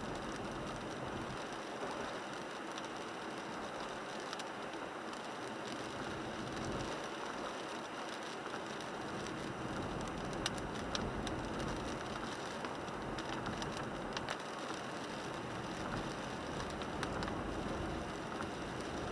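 Cabin sound of a 1998 Toyota 4Runner driving in the rain: steady tyre and road noise on wet pavement with rain hitting the windshield, and scattered sharp ticks of drops striking the glass.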